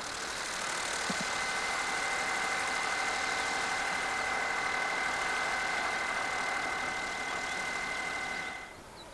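Pipistrel Velis Electro's 77-horsepower electric motor and propeller whining steadily as the plane taxis past, a few steady high tones over the propeller's rush. The sound swells a little and then cuts off suddenly near the end.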